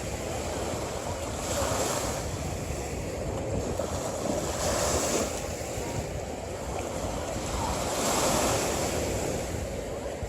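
Sea waves washing onto a shore, the surf swelling three times, about every three seconds, over a steady rush of water and wind.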